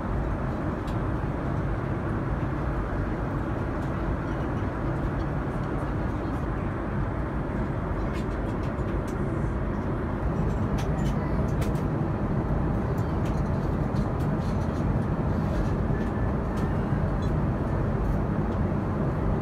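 Steady in-flight cabin noise of a Boeing 787-9 airliner at cruise: the even low rush of engines and airflow heard from a passenger seat, with a few faint clicks partway through.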